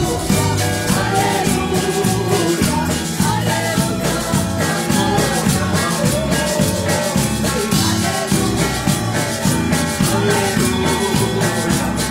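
Live church praise music: a woman singing lead into a microphone over electric bass and a steady beat.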